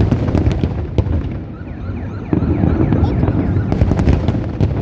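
Fireworks exploding in a rapid series of sharp bangs and crackles over a continuous low rumble, densest in the second half.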